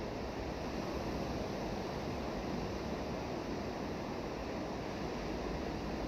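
Ocean waves breaking and washing up a rocky shore: a steady roar of surf.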